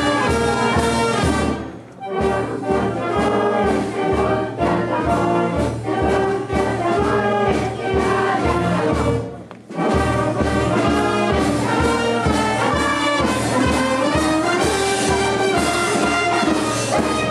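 Brass band playing a march with a steady beat; the music dips briefly twice, about two seconds in and again near the ten-second mark.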